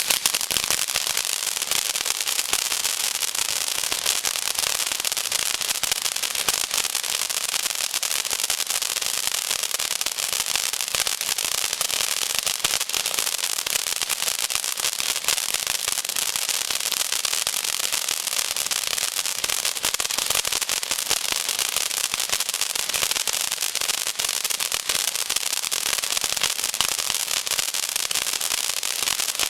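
Zena "Bubbling Lava" firework burning with a dense, continuous crackle of many tiny pops, steady and unbroken throughout.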